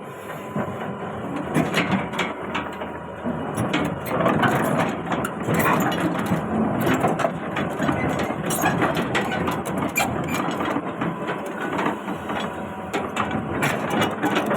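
Hitachi excavator running, with irregular metallic clanks and knocks throughout, growing busier about two seconds in.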